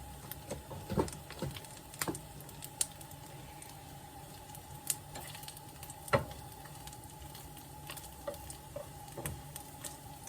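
Plant-based sausage halves sizzling in a frying pan with a little olive oil: a steady low hiss with scattered sharp pops and clicks, a few of them louder.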